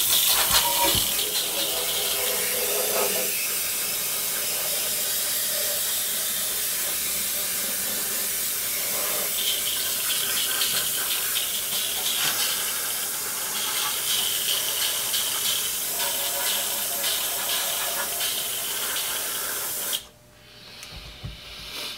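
Airbrush spraying paint: a steady hiss of compressed air through the nozzle that cuts off suddenly near the end.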